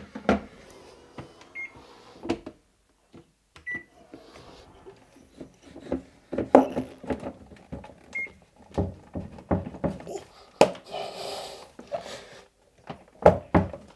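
Plastic bidet seat being pushed and slid back onto its mounting plate: a run of knocks, clunks and scraping as it is shoved into place to lock, with three short high beeps among them.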